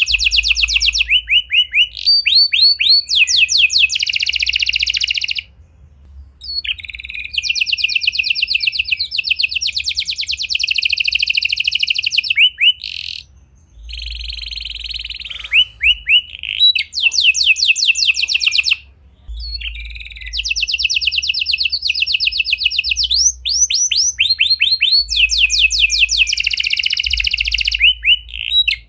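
Red domestic canary singing: long, high-pitched phrases of rapid trills that shift in speed and pitch, broken by a few short pauses.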